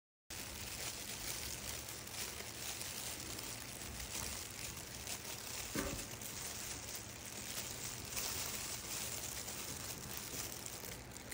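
Clear plastic food-prep gloves crinkling and rustling as hands wrap and press bread dough around a hot dog, with one faint knock about six seconds in.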